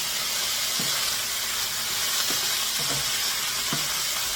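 Cornstarch-coated chicken chunks sizzling steadily in hot oil in a frying pan on high heat, with a few short knocks as the pieces are moved around.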